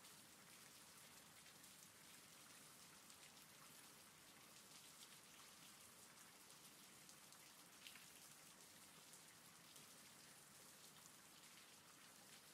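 Faint, steady rain with a patter of many small drops.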